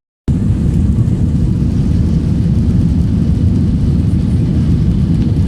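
Airbus A320 jet engines and rushing air heard from inside the passenger cabin: a loud, steady, low rumble that starts abruptly a quarter of a second in.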